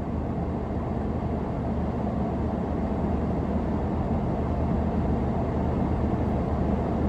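Car cabin noise while driving: a steady low engine and road hum, growing slightly louder over the stretch.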